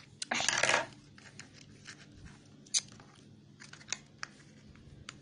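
Fingers and fingernails working open a small taped cardboard box: a short rasping tear or scrape lasting about half a second near the start, then scattered light clicks and taps on the cardboard, with two sharper clicks past the middle.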